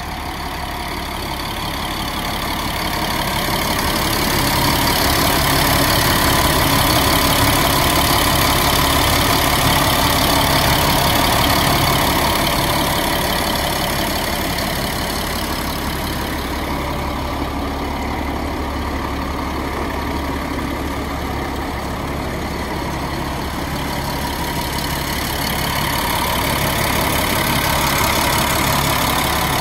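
Sterling snowplow dump truck's diesel engine idling steadily with the hood tilted open, growing louder about four seconds in and again near the end.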